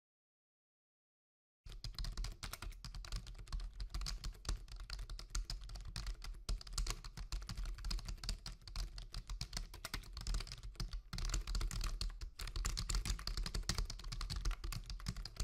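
Computer-keyboard typing sound effect: a rapid, unbroken run of key clicks that starts after a short silence about a second and a half in and keeps going.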